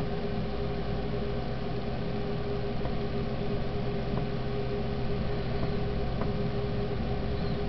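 Steady mechanical hum with a constant mid-pitched tone and a low drone, unchanging throughout, with a few faint ticks.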